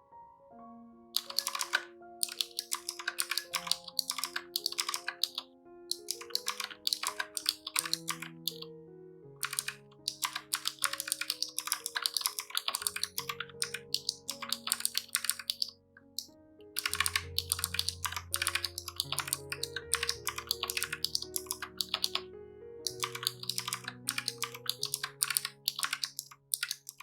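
Fast typing on a Razer Huntsman Mini 60% mechanical keyboard: dense runs of rapid key clicks lasting several seconds, broken by short pauses.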